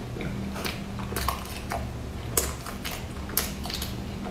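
Close-miked eating sounds: chewing a crumbly cream puff, with about five short sharp crackles and mouth clicks over a low steady hum.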